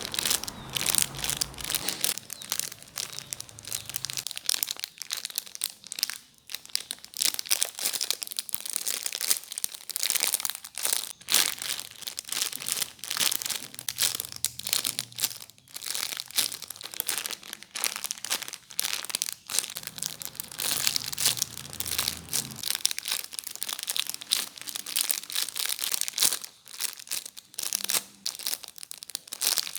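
Continuous crinkling and crackling of plastic being handled, many quick crackles without pause, as mini squishy toys are squeezed and turned over.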